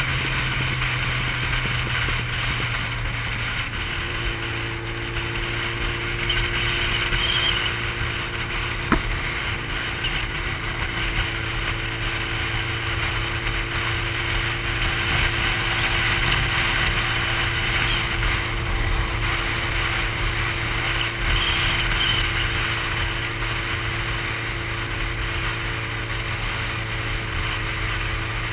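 Sport motorcycle engine running at a steady cruise, with wind rushing over the microphone. A single click about nine seconds in.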